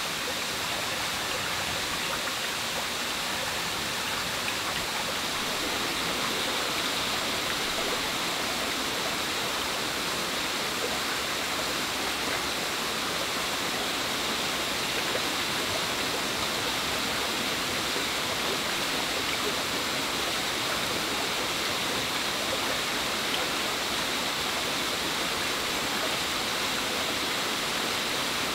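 Shallow stream flowing steadily, an even rushing of water.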